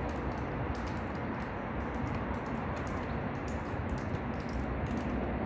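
Steady background noise with faint, irregular light ticks scattered through it.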